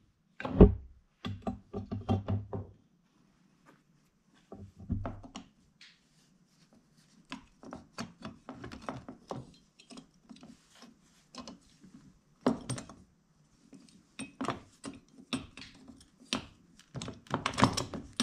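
Steel parts of a 1968 VW Beetle pedal cluster clicking and knocking as they are fitted together by hand: a string of separate clicks and knocks, with a heavier thump about half a second in.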